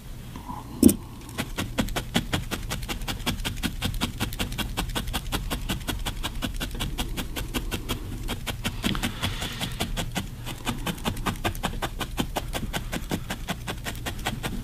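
Felting needle stabbing repeatedly into a ball of wool, a quick steady run of soft clicks several times a second, with one sharper knock about a second in and a low steady hum underneath.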